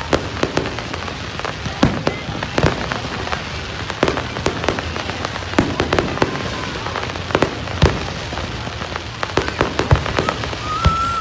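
Aerial fireworks going off in a rapid, irregular series of bangs and crackles over a continuous fizzing crackle.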